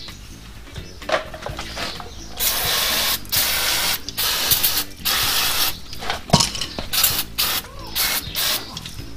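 Aerosol brake cleaner sprayed onto a car's front brake caliper bracket and disc: a loud hiss in repeated bursts starting about two and a half seconds in, first four bursts of under a second each, then quicker, shorter ones.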